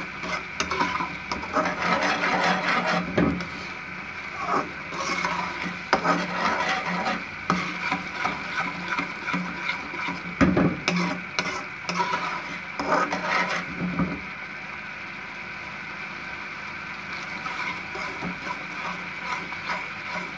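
Metal spoon stirring and scraping thick tomato-garlic purée around a steel pan, with irregular scrapes and knocks against the metal. The stirring stops about two-thirds of the way through, leaving a steady hum.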